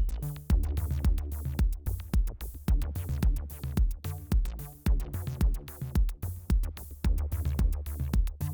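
Electronic background music with a drum-machine beat and a steady bass line.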